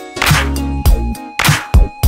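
Background music with a steady drum beat and a bass line.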